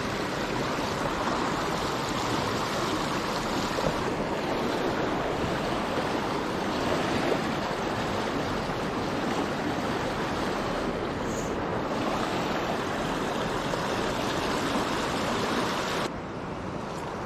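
River water rushing steadily past, the river running a little full. The sound becomes slightly quieter and duller near the end.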